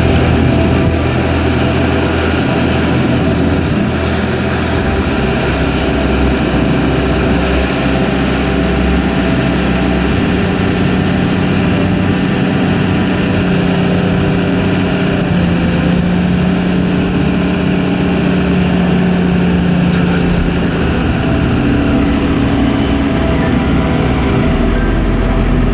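Kato mobile crane's diesel engine running steadily during a lift, its low note stepping up and down now and then as the crane works.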